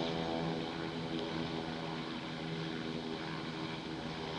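Beechcraft King Air twin turboprop taxiing at low power: a steady propeller drone with an even, unchanging hum.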